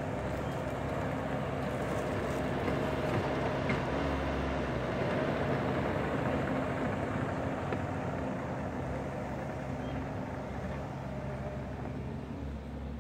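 Bobcat E42 mini excavator's diesel engine running steadily while the boom and bucket work loose dirt.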